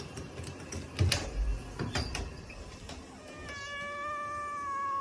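A door being opened by its knob, with a few knocks and clatters, then a cat giving one long, steady meow at close range, which rises a little at the very end.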